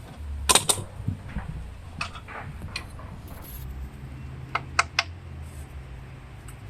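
Metal tools clinking and knocking against the car's front suspension while the lower control arm's 18 mm bolts are being undone. There is a pair of sharp clicks about half a second in, single knocks around two and three seconds, and a quick run of three near five seconds, over a low steady hum.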